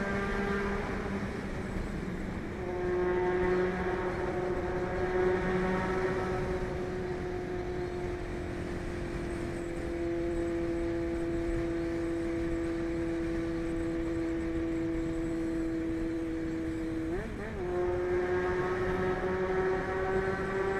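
Honda CBX 750 F inline-four motorcycle engine pulling steadily at cruising speed, its pitch holding nearly level and sagging slightly, over a steady rush of wind and road noise. About three-quarters of the way through the pitch briefly dips and jumps, then settles a little higher.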